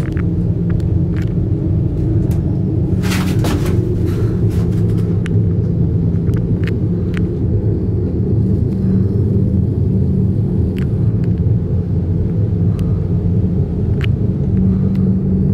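Steady low rumble and hum inside a moving aerial ropeway cabin, with scattered sharp clicks and rattles throughout.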